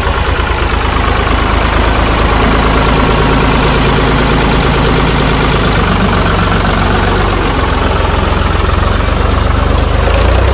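Ford 4610 tractor's three-cylinder diesel engine running steadily and loudly while it pulls a disc plough through wet field soil.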